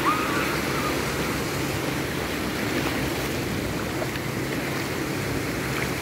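Small sea waves breaking and washing up a gently sloping sandy beach: a steady rushing surf.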